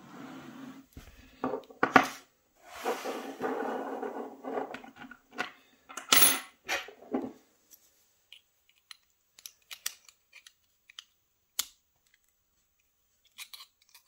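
A Gege AP3000 euro-profile lock cylinder being handled and taken out of its holder: metal scraping and clinking, with a sharp click about two seconds in. After that come only sparse small metallic clicks as the cylinder is worked at with a small tool to take it apart.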